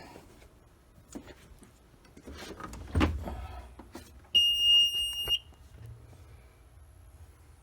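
Skid steer's key-on warning buzzer sounding one steady high beep for about a second, a little after a thud about three seconds in.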